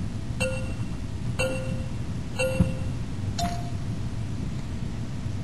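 Electronic timer giving a countdown: three short beeps on one pitch a second apart, then a fourth, higher beep as the go signal to start solving a Rubik's cube. A steady low hum runs underneath.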